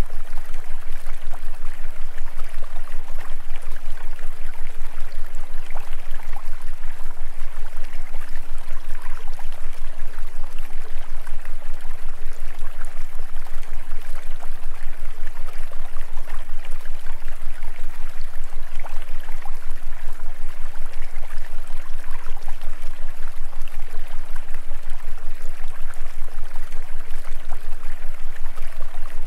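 Steady rushing noise like a running stream, used as the masking bed of a subliminal track, over a constant deep hum.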